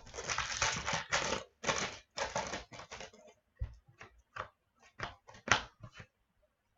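A foil trading-card pack wrapper being torn open and crinkled, followed by a run of short clicks and snaps as the cards are handled and flicked through.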